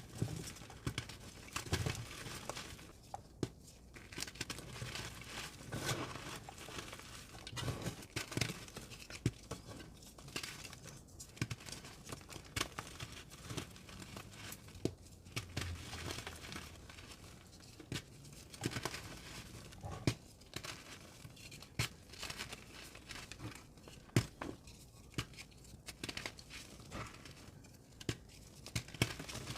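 Pressed blocks of reformed gym chalk being crushed and crumbled, with an irregular run of crunching crackles and dusty rustling.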